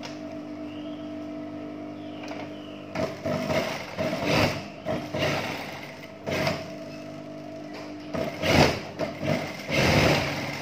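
JUKI industrial sewing machine stitching a trouser fly seam in several short runs, starting about three seconds in and loudest near the end, over a steady hum.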